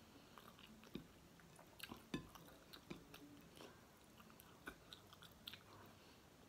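Faint close-up chewing of fried galunggong (round scad) and rice eaten by hand, with scattered small crisp clicks and crunches about one or two a second.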